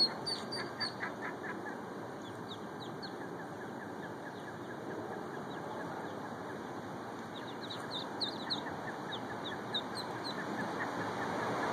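Mallard ducklings peeping: many short, high chirps that fall in pitch, thickest in the first second and again from about seven to ten seconds in.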